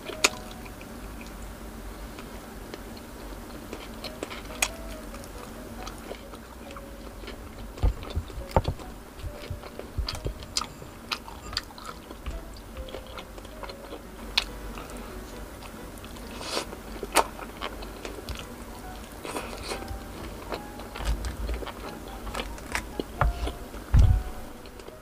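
Close-up eating sounds of a person biting and chewing grilled chicken-intestine skewers (isaw) dipped in sauce: irregular sharp mouth clicks and crunchy bites. The loudest bites come about eight seconds in and just before the end.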